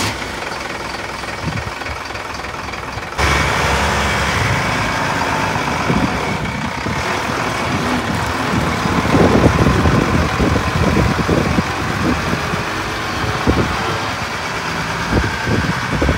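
Diesel engine of a Tata goods truck running, jumping up in level about three seconds in and then holding steady.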